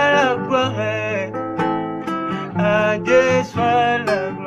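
Background music: acoustic guitar with a singing voice.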